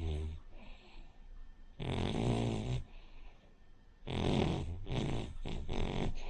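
A sleeping Cavalier King Charles Spaniel snoring in loud rasping bursts, one every two seconds or so with softer breaths between. Near the end a snore breaks into three or four short snorts. The uploader puts the pug- or bulldog-like snoring down to the breed's short, flat muzzle.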